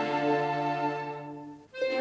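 Orchestral film score: held string notes slowly fade away. A new chord comes in just before the end.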